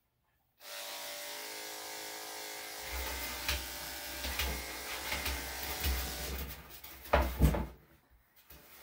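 Corded electric dog grooming clipper starting about half a second in and running with a steady hum, with small clicks as it works through a puppy's coat. Near the end come a few loud knocks as it is set down on the table, and the motor stops.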